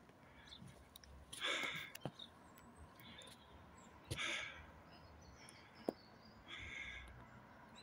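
Breathing close to the microphone: three slow breaths about two and a half seconds apart, with a few faint clicks between them.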